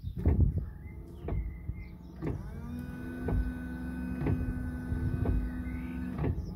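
Ford Econoline E350's electric windscreen washer pump running. It spins up with a short rising whine about two seconds in, holds a steady whine for about four seconds and then stops. The pump is working again after its electrical connections were cleaned. A regular knock sounds about once a second throughout.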